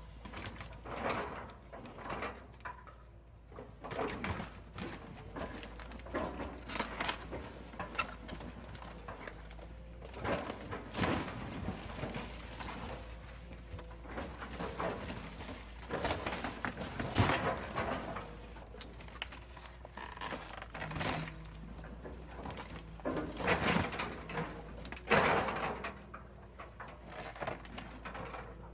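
Excavator demolition grapple crushing the body of a classic Mini: the car's sheet metal crunches, creaks and scrapes in irregular bursts as the roof and body fold in, with the loudest crunches about 17 and 25 seconds in.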